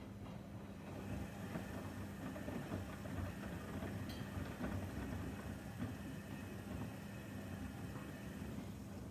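Washing machine running, with a steady motor hum under an irregular rumble from the turning drum. The rumble grows louder about a second in and eases near the end, and there is a single brief click about four seconds in.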